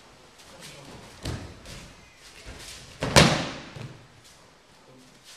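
Bare feet thudding on training mats, then about three seconds in a loud slap and thud as a thrown person hits the mats in an aikido breakfall.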